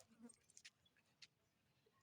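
Aspin dog giving one faint, short whimper about a quarter second in, then a few soft clicks: the distress of a dog locked in a mating tie.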